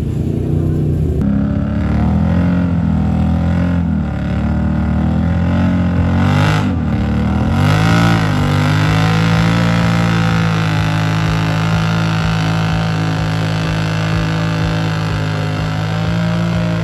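Off-road four-wheeler engine revving, its pitch swinging up and down for several seconds, then held at a steady high speed through the second half.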